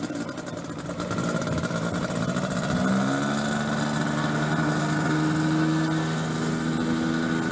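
Single-seat homemade ultralight's propeller engine running steadily, its pitch stepping up about three seconds in and then holding.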